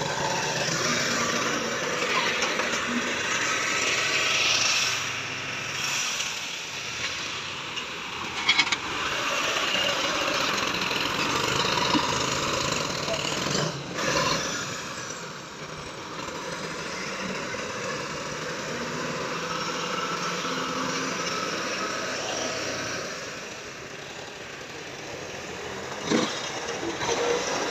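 Massey Ferguson tractor's diesel engine running steadily under work, with a few sharp knocks.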